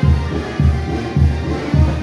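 Music with a strong, steady bass beat, a little under two beats a second, and sustained tones above it.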